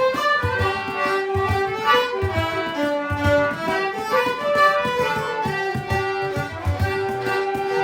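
Background music: a bowed string melody, fiddle-like, over a steady low drum beat.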